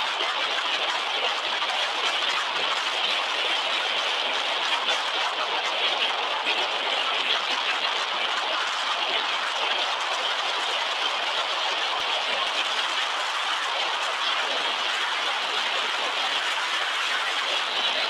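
Steady road and running noise of a car driving along, heard from inside the car, an even rushing sound at a constant level.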